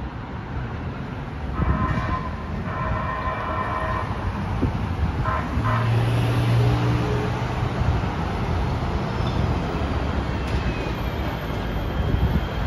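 LA Metro A Line light-rail train sounding its horn as it approaches: a short blast about a second and a half in, then a longer one, over steady street traffic.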